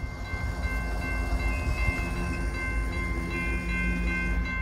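BNSF intermodal freight train approaching a pedestrian crossing, its horn sounding in the distance over a low rumble, while the crossing's warning bells ring with a steady high tone.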